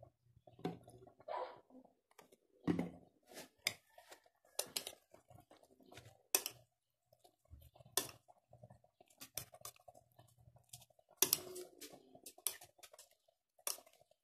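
Metal spoon knocking and scraping against a ceramic bowl while stirring a wet chopped-tomato mixture: irregular clinks about a second apart, with the loudest cluster near the end.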